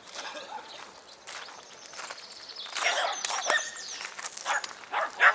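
Birds chirping in quick high trills, over a string of short scuffs and knocks with the loudest knock near the end.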